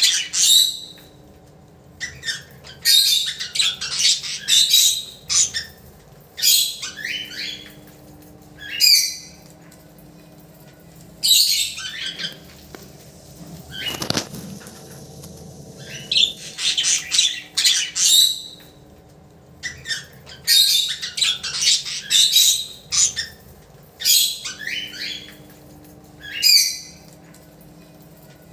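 Budgerigars calling in repeated harsh, chattering bursts of a second or two each, with short pauses between them.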